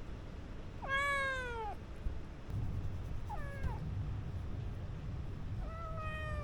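Kitten meowing three times: a long falling meow about a second in, a shorter one a couple of seconds later, and a third near the end.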